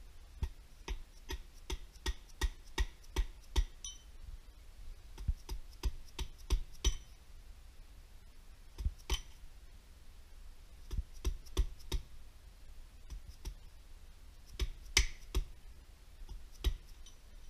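Hand ratchet clicking in short runs of sharp metallic clicks, about two or three a second, with pauses between the runs, as the connecting-rod cap fasteners on a D24 diesel block are worked loose.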